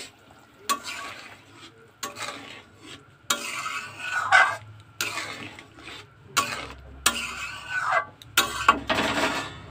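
Metal ladle stirring and scraping around a metal kadai of simmering curry gravy, in a string of uneven strokes.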